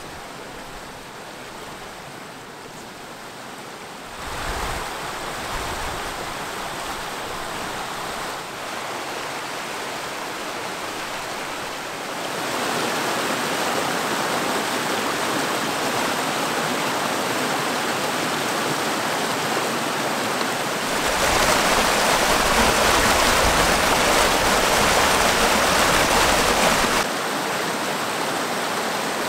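Mountain stream cascading over rocks: a steady rush of water whose loudness jumps up in sudden steps, loudest for about six seconds near the end before dropping back.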